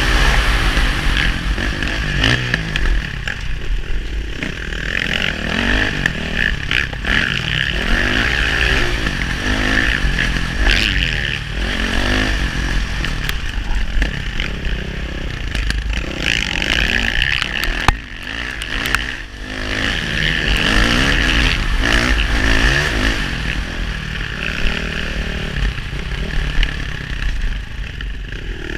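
KTM four-stroke single-cylinder dirt bike engine, heard from on the bike, revving up and down again and again as it is ridden hard through the gears, with clatter and scraping over rough ground. A sharp knock comes about eighteen seconds in.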